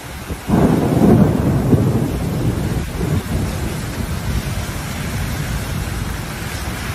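Heavy rain pouring down on a flooded street. A loud, deep rumble of thunder breaks in about half a second in and fades over the next few seconds.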